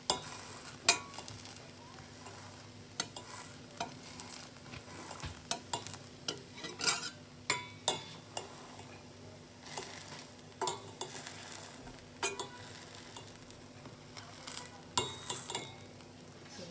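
Slotted metal spatula scraping and tapping against a stainless steel frying pan in irregular strokes, over the light sizzle of a pancake frying in oil.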